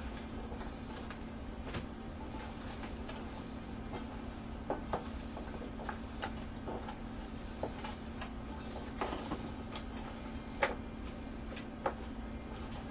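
Irregular light clicks and taps of cut potato fries knocking against a metal mixing bowl as they are tossed with spices by hand, the two sharpest near the end, over a steady low hum.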